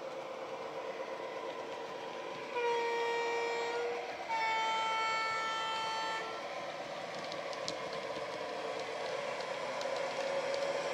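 Sound decoder in a model Irish A Class diesel locomotive playing its diesel engine running, and sounding a two-tone horn: a lower note held for over a second, then a higher note for about two seconds. The running sound grows louder near the end as the model approaches.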